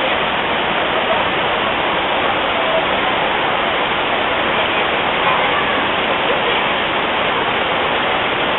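Cascading waterfall: river water rushing steadily over rock terraces, with faint voices under it.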